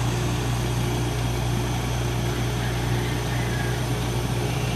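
New York rooftop air-conditioning unit running just after start-up, its compressor and condenser fan giving a steady low hum while the system is partway through being charged with refrigerant.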